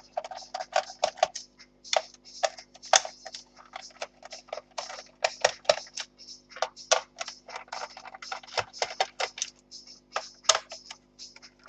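Screws being taken out of a laptop's plastic bottom case with a screwdriver: a rapid, irregular run of small clicks and ticks.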